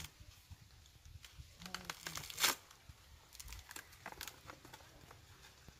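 Coconut husk being torn apart by hand: a run of crackling rips, the loudest about two and a half seconds in.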